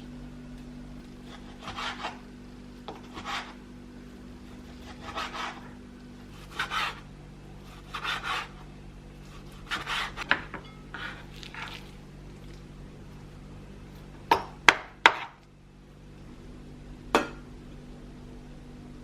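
Kitchen utensil scraping or rubbing in slow, repeated strokes, about one every second and a half. Near the end come three quick sharp clicks and then one more, over a steady low hum.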